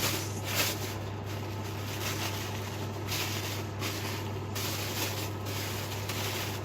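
Handling of a plastic bag inside a fabric vacuum-cleaner dust bag: a few soft rustles and scrapes over a steady low hum.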